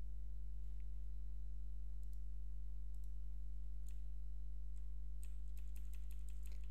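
Steady low electrical hum, with a few faint clicks and a quick run of faint clicks near the end.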